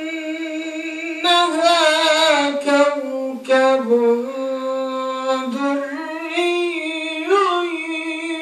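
A man's voice chanting Quranic recitation in the Warsh reading: long, drawn-out melodic notes that sink in pitch and climb again, broken by a few short breaths.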